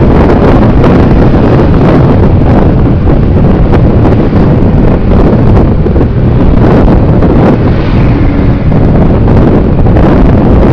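Loud, steady wind buffeting on the microphone of a camera riding on a moving scooter, covering everything else.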